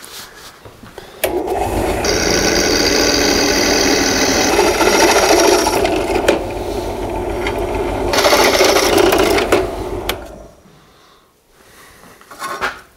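Bench drill press running, its bit cutting through a quarter-inch-thick metal washer to widen the hole: a steady motor hum with a high cutting squeal that comes in twice. It starts about a second in and stops at about ten seconds, followed by a few light metallic clinks near the end.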